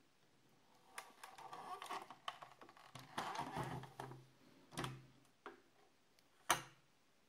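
Handling noise from a 1/18-scale ERTL model car: rubbing and small clicks as its opened hood is lowered, a click about five seconds in as it shuts, and a sharper, louder click near the end.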